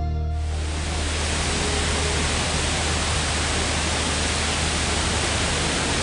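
Twin waterfall falling into a pool: a steady, even rush of water with a low rumble. A tail of guitar music fades out about half a second in.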